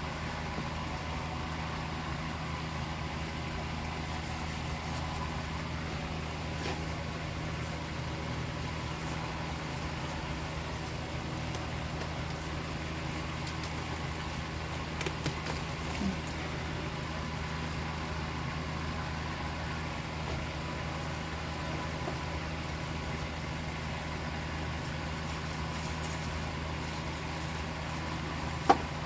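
A steady low mechanical hum, with a few faint knocks about halfway through and one sharp click near the end that is the loudest sound.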